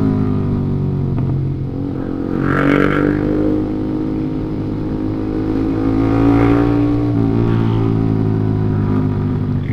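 Motorcycle engine running steadily while riding, its pitch drifting slightly with the throttle, with two brief louder swells of noise about two and a half and six seconds in.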